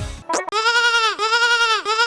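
Sheep bleat sound effect looped, the same bleat repeating about every two-thirds of a second, each rising and falling in pitch. Music cuts off just before it, with a brief sliding sound in between.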